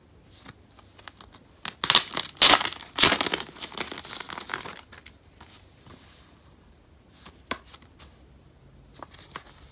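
Clear plastic sleeve being torn open and peeled off a paper DVD envelope. Loud crinkling and tearing comes in bursts about two to three and a half seconds in, then fades to softer crinkles and a few faint rustles.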